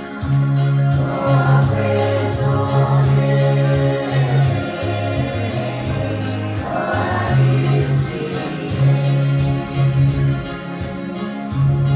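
Group of voices singing gospel-style music over electronic keyboard accompaniment, with sustained bass notes and a quick ticking beat.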